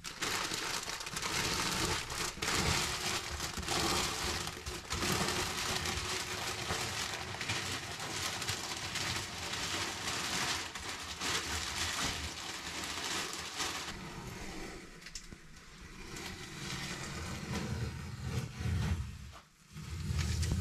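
Brown protective paper being gathered off a countertop and crumpled into a ball by hand: a long run of crinkling and rustling, which eases off briefly just before the end.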